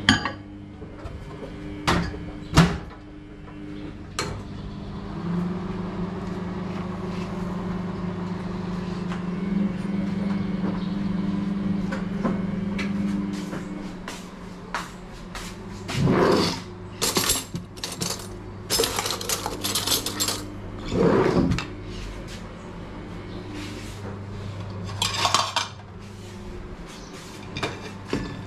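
Bluesky microwave oven running with a steady low hum, after a few sharp clicks near the start as the mug goes in and the door shuts. Dishes and cutlery clink over it now and then, loudest in a cluster past the middle.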